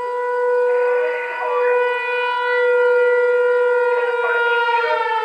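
Outdoor fire warning siren sounding a steady, loud tone during a siren test, its pitch starting to fall near the end as it winds down.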